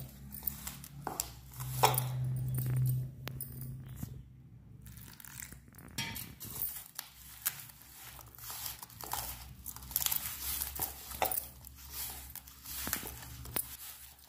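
Hands mixing flour and water into dough in a steel bowl: fingers scraping and rubbing against the metal, with scattered light clicks. A low hum comes and goes in the first three seconds.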